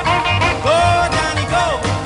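Background music with a steady bass beat and a melody line of swooping, bending notes.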